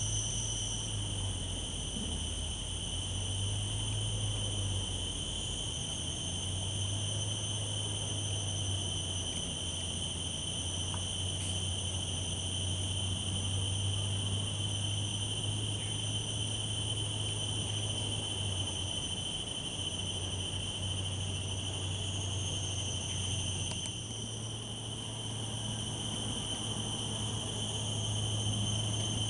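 Steady high-pitched insect chorus in mangrove forest, several unbroken shrill tones layered together, with a low steady hum underneath.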